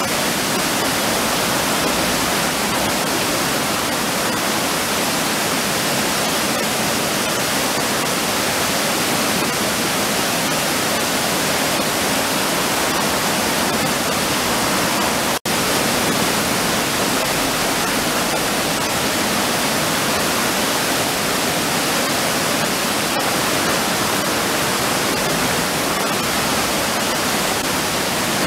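River water pouring over a low weir, a steady, even rushing of falling and churning water. It breaks off for an instant about halfway through.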